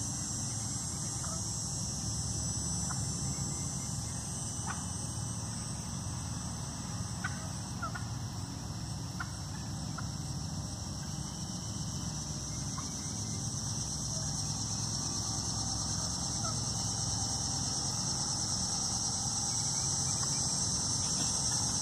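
Wild turkey giving a dozen or so short, scattered single clucks, spread unevenly across the stretch, over a steady high-pitched hiss.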